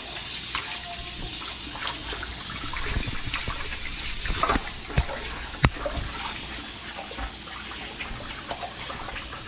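Kitchen faucet running steadily into a stainless steel bowl while cut fish pieces are rinsed by hand. A few sharp knocks come about halfway through.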